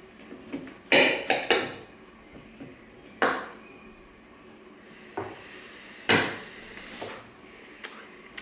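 A large hunting knife and a fork clinking and scraping against a plate while cutting food: a run of sharp clatters, three close together about a second in, then single ones spread over the rest.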